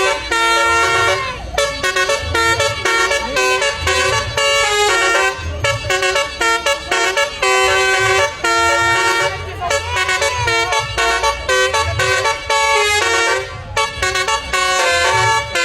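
A bus's basuri musical horn playing a fast tune of many short, changing horn notes over a low engine rumble.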